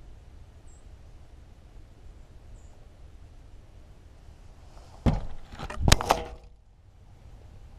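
A quick run of close knocks and clattering as the camera is jostled and moved. It starts sharply about five seconds in, with the loudest knock a little before six seconds, over a quiet background with a few faint high chirps before it.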